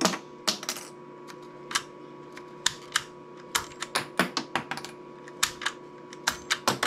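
Sharp, irregular clicks and clacks of a toy train mobile missile launcher's firing lever and mechanism being worked by hand, some twenty in all at uneven spacing.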